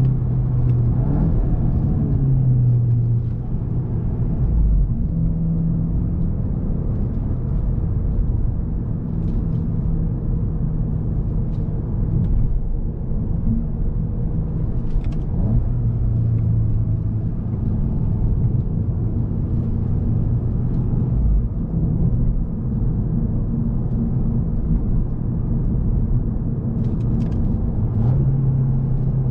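2021 Volkswagen Golf GTI Mk8's 2.0 TSI turbocharged four-cylinder engine running on the move, a steady drone over road rumble. Its pitch rises briefly about a second in and steps up and down a few more times as the car changes speed.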